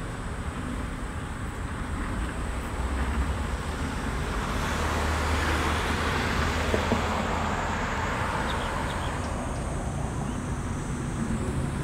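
Road traffic: cars driving through an intersection, a steady hiss of tyres and engines that swells as a car goes by about halfway through and then fades.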